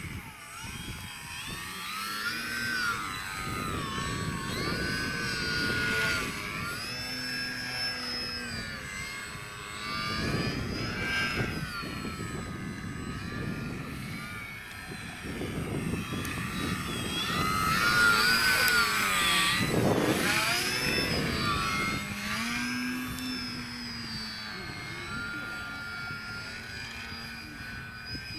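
Radio-controlled model airplane flying overhead: its motor and propeller make a high whine that rises and falls in pitch with throttle changes and passes, loudest on a close pass about two-thirds of the way through, where the pitch drops sharply. A low rumble runs underneath.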